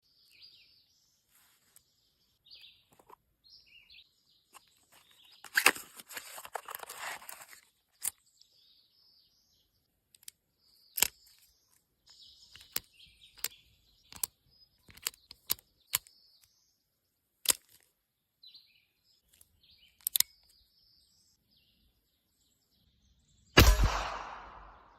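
Birds chirping, with scattered sharp clicks, then a single loud shot from an old revolver near the end, trailing off over about a second.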